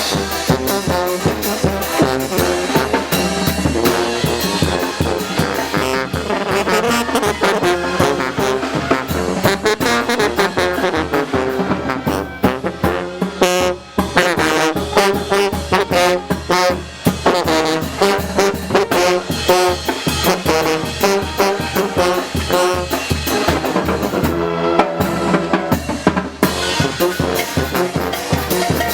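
Oaxacan brass band playing a muerteada carnival rhythm: trombones and trumpets over a steady drum beat.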